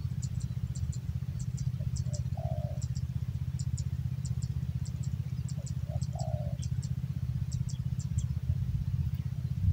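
Male spotted dove cooing: two phrases, about two and a half and six seconds in, each of a couple of short notes ending in a longer falling note. They sound over a steady low rumble, with high double chirps repeating throughout.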